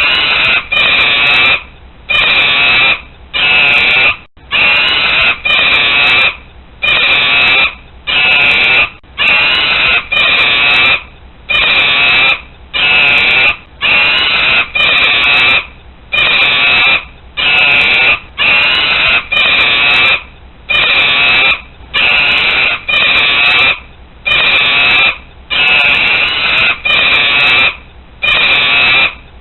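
Monkey screaming loudly and repeatedly: harsh shrieks about one a second, each lasting under a second.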